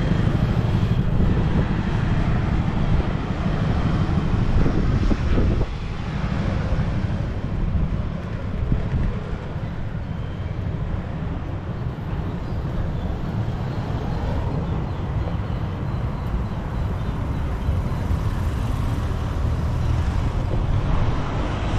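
Steady low outdoor rumble with no speech, dropping a little about six seconds in.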